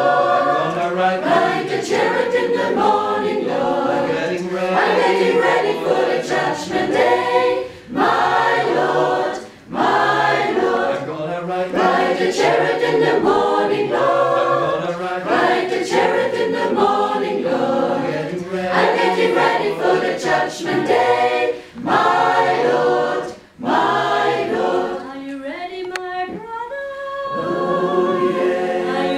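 Mixed choir of women's and men's voices singing a cappella, phrase by phrase with a few short breaths between. Near the end it settles into a long, softer held chord.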